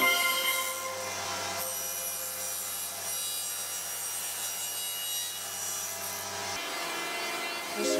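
Table saw running with its blade cutting into a hardwood piece, a rasping cut over a steady low motor hum. The hum drops out about six and a half seconds in.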